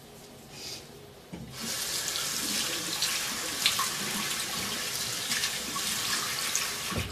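A water tap running into a sink, turned on about a second and a half in and running steadily.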